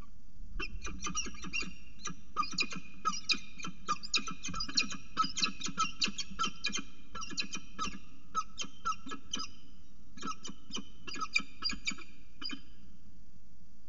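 Peregrine falcon calling in a rapid run of short, sharp notes, about four or five a second, with a brief pause two-thirds of the way through.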